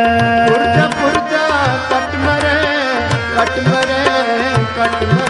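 Sikh kirtan accompaniment: tabla playing a steady rhythm, the bass drum's pitch gliding upward under its strokes several times. Beneath it runs a sustained harmonium melody.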